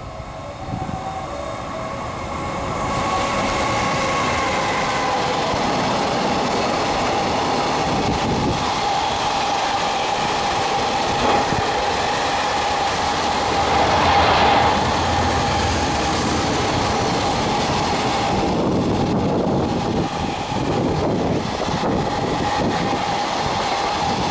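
EF210 electric freight locomotive and its container wagons passing through at speed. The rush of wheels on rail builds a few seconds in and stays loud as the long train goes by, with a steady high ring running through it.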